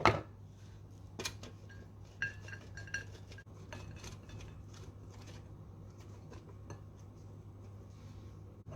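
Kitchen utensils knocking and clinking against dishes: a sharp knock at the start and another a second later, then a few quick ringing taps, like a spoon against a bowl, and scattered light clicks.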